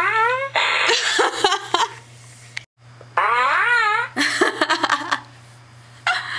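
Fart sound effects from a soundboard, several in quick succession. Squeaky ones whose pitch wavers and rises alternate with rougher, spluttering ones, with a brief silent gap near the middle. A steady low electrical hum runs underneath.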